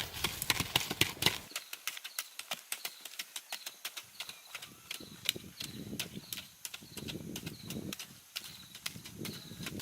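Quick, irregular clicks and knocks of hard objects striking, several a second, with low muffled thuds in the second half.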